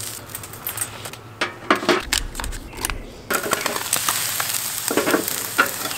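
Eel grilling over a charcoal fire: a steady sizzle as the fat drips onto the hot coals, broken by sharp crackles and clicks, the sizzle growing denser about three seconds in.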